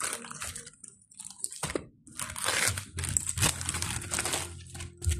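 Plastic courier mailer bag crinkling as it is picked up and turned over in the hands, in several bursts of rustling.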